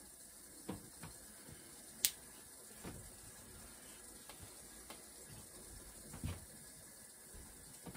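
Scattered light knocks and clicks of objects being handled on a work surface, the sharpest a single crisp click about two seconds in and a duller knock just after six seconds, over a steady faint hiss.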